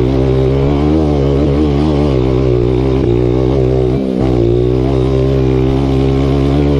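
Enduro dirt bike engine running under throttle on an uphill climb, its pitch rising and falling with the throttle, with a brief drop about four seconds in.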